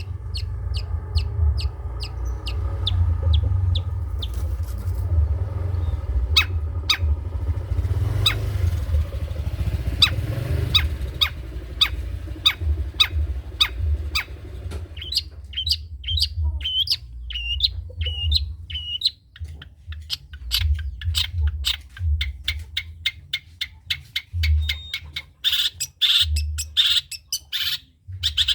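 Long-tailed shrike (cendet) singing a trotol song: long runs of sharp, rapidly repeated notes, speeding up as they go. Short curling whistled notes come in past the middle, and harsh buzzy notes near the end. A low rumble runs under the first half.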